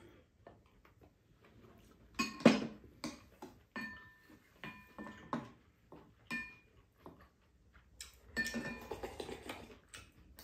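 Spoons and chopsticks clinking against ceramic bowls and a pan in short, ringing taps, the loudest about two and a half seconds in. Near the end there is a rougher stretch of slurping as food is drunk from the bowls.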